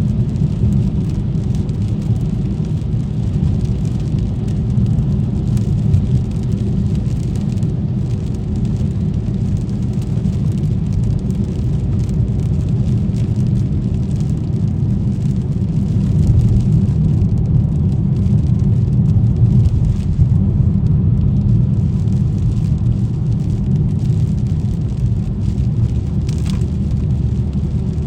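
A car driving in the rain: a steady low rumble of engine and tyres with a fainter hiss of rain and wet road, a little louder about two-thirds of the way through.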